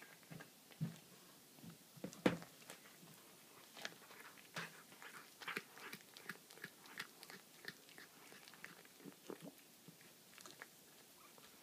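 A domestic cat chewing and biting into a baby rabbit, crunching its small bones in irregular clicks and crunches. The loudest crunch comes about two seconds in.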